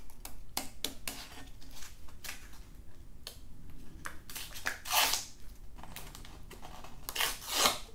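220-grit self-adhesive (PSA) sandpaper being unrolled from its roll and pressed flat onto an aluminium plate by hand: paper crackling and rustling with scattered clicks, and two longer rasping swishes, about five seconds in and near the end, as the sticky strip is pulled off the roll.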